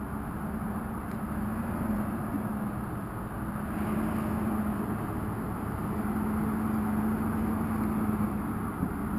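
Land Rover Discovery II's engine running at low, steady revs as the truck crawls slowly over an off-road dirt trail, its hum getting a little louder about halfway through.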